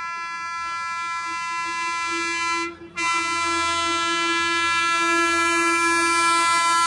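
Horn of a WAP-7 electric locomotive sounding a long steady blast. It breaks off briefly a little under three seconds in, then sounds again, growing louder as the train approaches.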